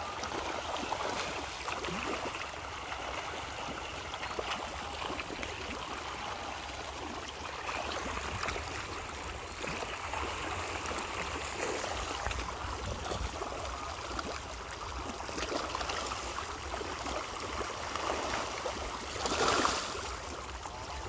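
Many fish splashing and churning at the surface of a pond as they crowd in to take floating feed: a continuous crackling, watery splashing, with one louder splash about nineteen seconds in.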